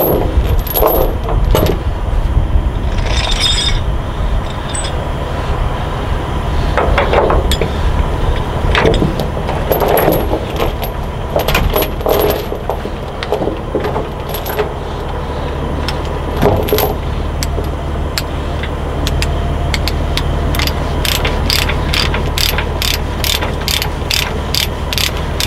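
A truck engine idling steadily, with scattered metal clanks and knocks of tie-down work. Over the last few seconds, regular sharp metallic clicks come at about two to three a second.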